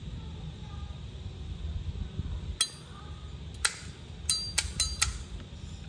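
Zippo lighter handled: a series of about six sharp metallic clicks and clinks, the first two a second apart and the last four in quick succession, typical of the hinged lid being flipped open and snapped shut.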